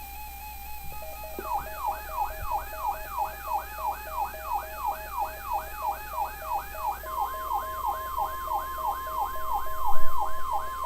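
Weather radio alert: a siren-like tone that sweeps down in pitch about three times a second, over a pulsing lower tone. About seven seconds in, a steady high tone joins it: the 1050 Hz NOAA Weather Radio alert tone that signals a warning broadcast.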